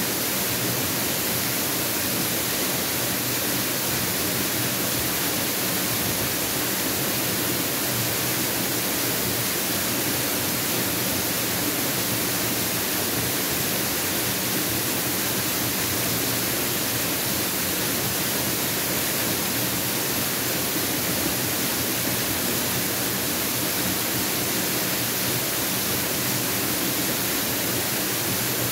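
Mountain waterfall: falling water making a steady, even rushing noise that holds unchanged throughout, strongest in the high end.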